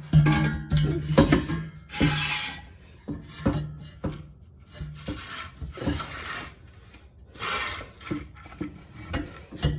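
Metal exhaust pipes scraping and clanking as they are worked into place, with several drawn-out rasping scrapes and sharp knocks, over background music.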